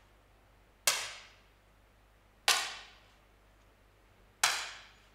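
10 m air pistols firing on the shooting line: three sharp pops, roughly a second and a half to two seconds apart, each dying away over about half a second.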